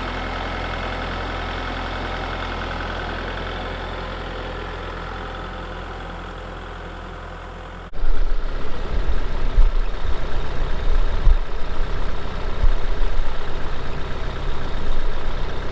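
Kubota MX6000 tractor's diesel engine running steadily; about halfway through the sound changes abruptly to a louder, uneven rumble with low thumps.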